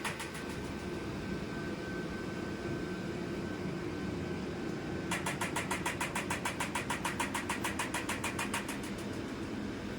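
Electromagnetic pelvic floor stimulation chair running: a steady machine hum, with a rapid train of even clicks, about ten a second, from its stimulation coil starting about halfway through and stopping near the end.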